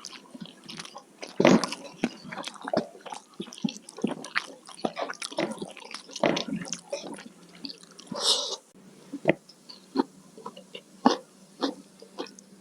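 Close-miked eating sounds: wet chewing, mouth clicks and small crunches in an irregular patter, with a brief hiss about eight seconds in.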